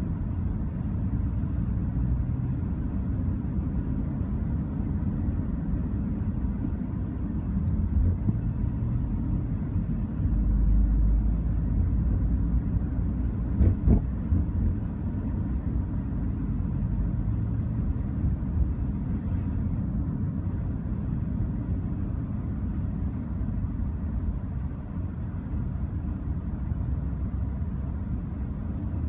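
Steady low road and engine rumble heard from inside a car's cabin while driving through a road tunnel, with the rumble swelling for a couple of seconds about a third of the way in. A couple of brief knocks come close together about halfway through.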